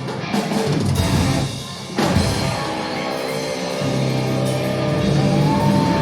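Stoner rock band playing live: drum kit and distorted guitars. A big hit lands about two seconds in, then the chords ring out sustained, with a guitar note gliding upward past the middle.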